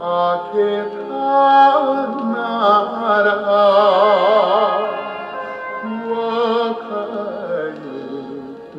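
Music from a vinyl record played on a vintage Columbia portable stereo turntable and heard through its speakers: a melody with a wavering, vibrato pitch over accompaniment.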